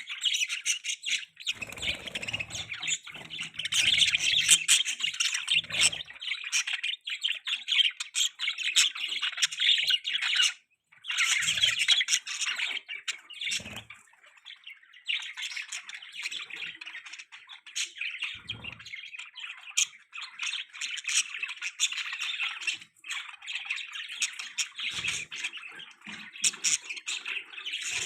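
Baby budgerigar chirping and squawking in a rapid, continuous high chatter, breaking off briefly about ten seconds in.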